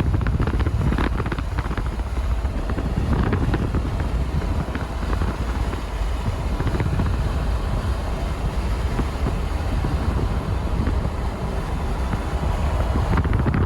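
Hail pelting the Dominator storm-chasing vehicle as it drives, a dense rattle of small hits over steady low road and wind noise; the hits are thickest in the first few seconds and again near the end.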